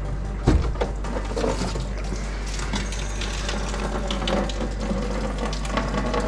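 Coolant draining out of an E21 BMW heater core, liquid running and trickling out of the disconnected line. A sharp knock about half a second in is the loudest sound.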